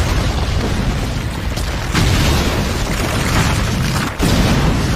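Animated battle sound effects: a continuous explosion rumble, heavy in the bass, swelling afresh about two seconds in and again near the end.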